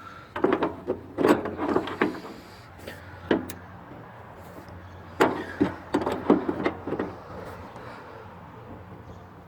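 Wrench clinking and scraping on metal while tightening a leaking joint on a split air conditioner's discharge line. The sharp knocks come in clusters: from about half a second to two seconds in, once near three and a half seconds, and again from about five to seven seconds in, over a steady low hum.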